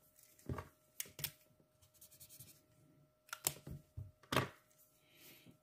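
Felt-tip marker writing on paper: several short strokes with pauses between them.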